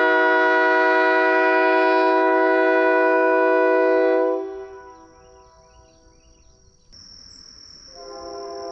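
Leslie RS3K three-chime train horn (bells 31, 37 and 48) sounding one long, steady chord that cuts off a little over four seconds in. It starts again, quieter, just before the end.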